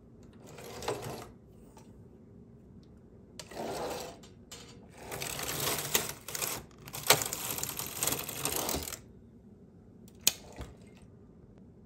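Singer 328 Memo-Matic knitting machine carriage pushed across the needle bed, knitting a punchcard-patterned row: a sliding, clattering rasp over the needles, longest and loudest in the middle of the stretch. A sharp click follows just after ten seconds.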